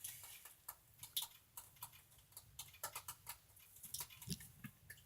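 Faint, irregular clicks from metal toy handcuffs being handled and fastened.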